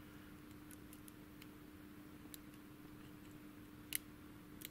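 Faint ticks of a lock pick probing the pins of a Thirard euro cylinder under tension, one sharper click about four seconds in. It is the sound of single-pin picking, each pin checked for binding.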